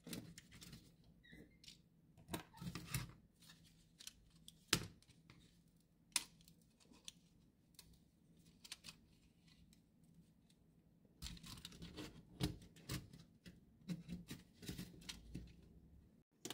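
Faint plastic clicks, knocks and rattles from a graphics card's plastic fan shroud and fan being handled as the old fan is taken out. A few sharp clicks come in the first half, then a denser run of clicking and rustling near the end.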